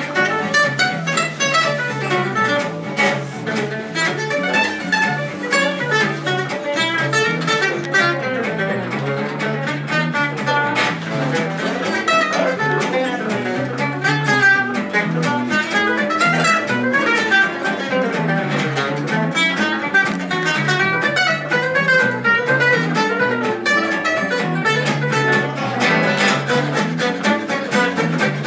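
Gypsy jazz trio playing: lead acoustic guitar picking a fast melody over rhythm guitar strumming steady chords and a moving bass line.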